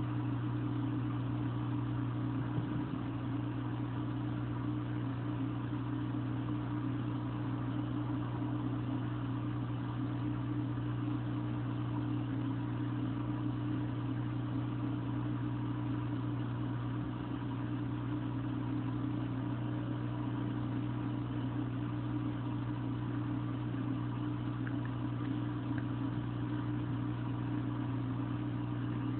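Steady electric hum of an aquarium pump running, a low mains-type drone with a higher overtone and no change in level.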